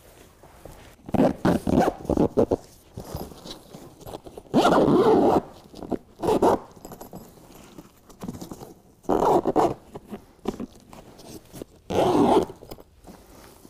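A heavy zipper joining a BedRug carpet bed liner's sidewall to its floor section, pulled along in short, irregular strokes, about half a dozen, the longest lasting about a second.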